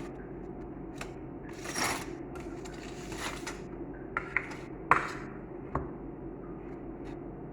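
A spoon scraping and tapping on a dish while scooping mashed potato filling: two soft scrapes, then a few sharp taps and clinks, over a steady low hum.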